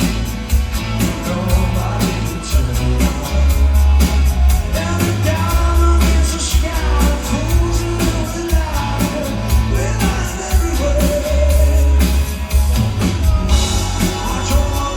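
Rock song with a singing voice over loud guitars, drums and heavy bass.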